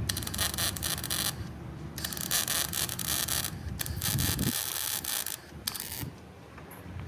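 Electric arc welding crackling in four bursts of about one to two seconds, with short breaks between them, as stitch welds are laid on a sheet-steel patch panel over a bus wheel arch.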